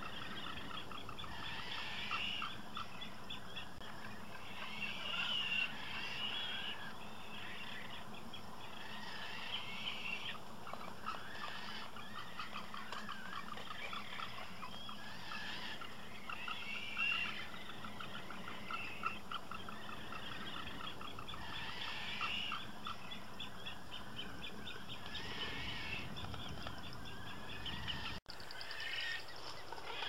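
Magnificent frigatebird breeding colony: many birds giving rapid rattling, chattering calls that overlap without a break. The sound cuts out for an instant near the end.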